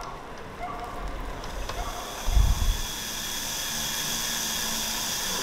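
Cordless drill running in one steady, whirring stretch from about three seconds in, with a low thump just before it.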